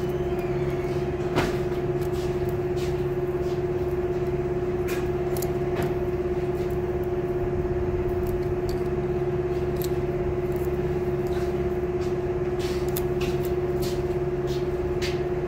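Steady machine hum, with light scattered clicks of small metal tools and one sharper tick about a second and a half in, as feeler gauge blades are tried in a valve's clearance gap.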